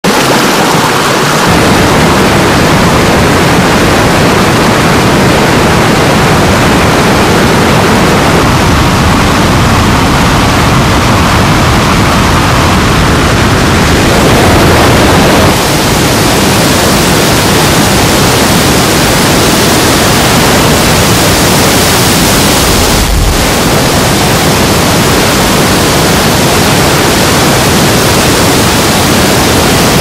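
A swollen mountain stream in spate, white water rushing and pouring down over rocks in a loud, steady rush. About halfway through the rush turns brighter and hissier.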